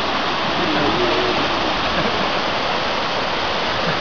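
Whitewater rapids rushing through a rocky river gorge: a steady, unbroken rush of water, with a faint voice about a second in.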